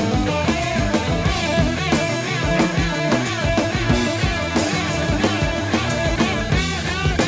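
Heavy rock music: an instrumental passage with electric guitar, bass and drum kit, without singing.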